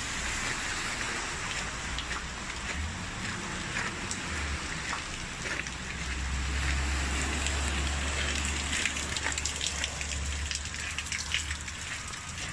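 Steady rain falling on wet, hail-covered pavement, with many small drop impacts. A low rumble sits underneath from about four seconds in until near the end.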